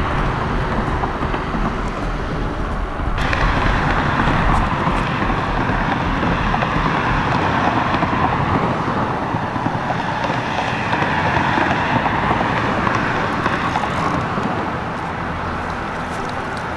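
Steady wash of road traffic on a highway bridge, a continuous noise with no distinct passes. It gets louder and brighter about three seconds in.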